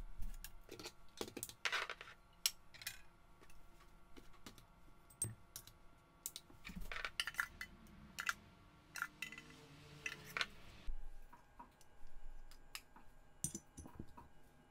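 Irregular small clinks and taps of metal espresso tools, as ground coffee is scooped from a tin into a stainless dosing cup on a kitchen scale. In the middle there is a softer stretch of rustling.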